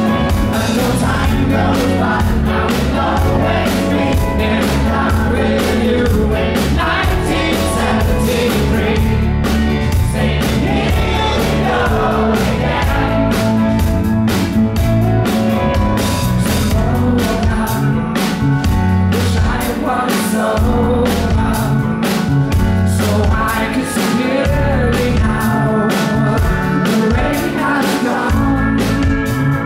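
Live pop-rock band performance heard from the audience: a male lead vocalist singing over his own piano, with a second keyboard, bass and a steady beat.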